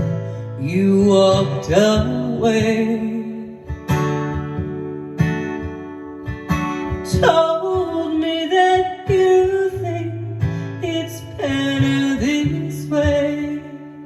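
A woman singing a slow country song to strummed acoustic guitar, the guitar carrying on alone between sung lines.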